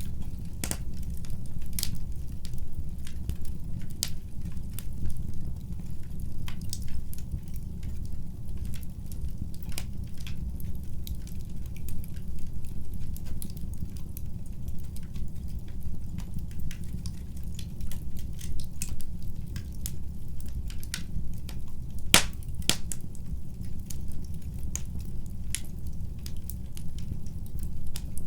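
Wood fire burning in a fireplace: a steady low rumble of flames with irregular sharp crackles and pops throughout, two of the loudest about 22 seconds in.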